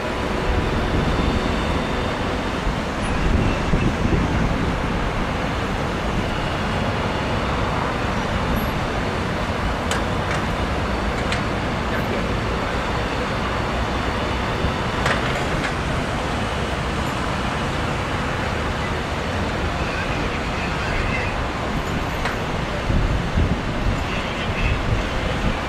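Steady road traffic noise from cars on the carriageway, with a few faint clicks near the middle.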